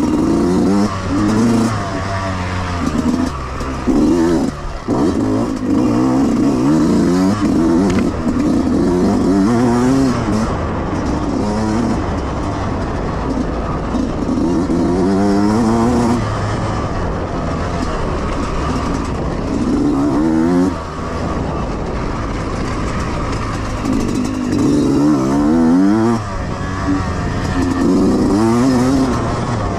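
Yamaha YZ125X two-stroke dirt bike engine revving up and dropping back over and over as the rider opens the throttle, shifts and backs off, with about eight rising sweeps in pitch.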